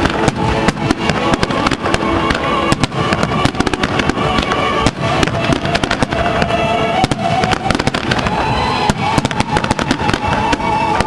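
Fireworks shells bursting in rapid succession, many sharp bangs crowding one another, with music playing underneath.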